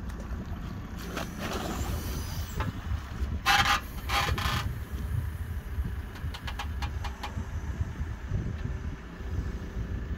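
Backhoe loader working its dipper arm in a flooded pit: the engine runs with a steady low rumble under wind on the microphone. A loud, harsh burst lasting about a second comes about three and a half seconds in, followed by a few faint ticks around seven seconds in.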